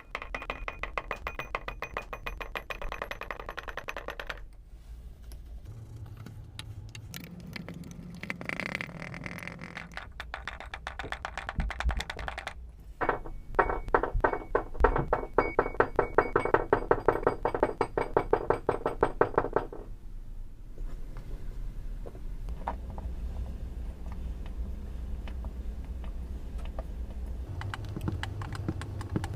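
Music with a rapid clicking, tapping rhythm, most dense and loudest in the middle of the stretch, over a steady low tone.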